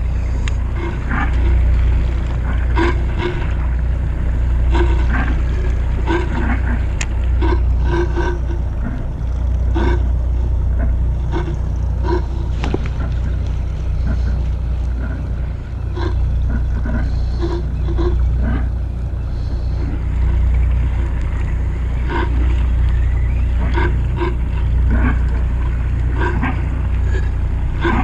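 Steady low rumble of a fishing boat at sea, its engine and wind on the microphone, with scattered short clicks and knocks throughout.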